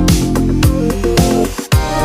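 Background electronic music with a steady beat: falling bass kicks about twice a second under held synth chords, with a brief drop near the end.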